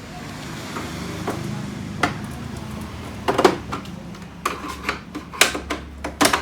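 Screwdriver prying at the plastic side cover of a Canon MF3010 printer: a soft scraping rustle, then a string of sharp plastic clicks and knocks as the cover's locking tabs are worked loose.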